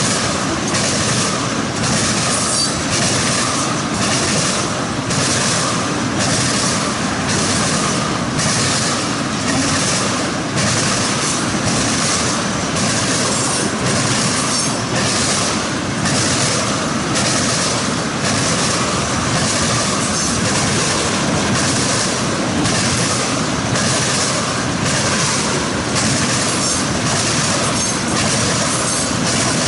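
Tank cars of a unit tank train rolling past, their steel wheels clacking over the track in a steady, loud rhythm of knocks, a little more than one a second.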